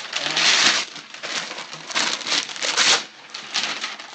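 Brown wrapping paper being ripped and crumpled off a package, in several spells of tearing and rustling with short pauses between.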